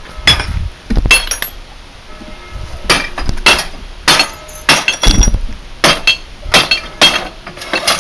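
Claw hammer striking a Bosch CRT television's already-smashed picture tube again and again, glass breaking and shards clinking with each blow. About a dozen uneven strikes, one to two a second.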